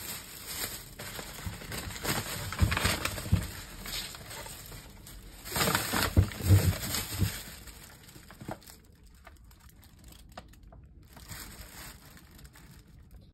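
A white plastic shopping bag and a brown paper bag rustling and crinkling as they are handled and pulled off a glass bottle. It is loudest about three and six seconds in and quieter after about eight seconds, with only a few faint crackles near the end.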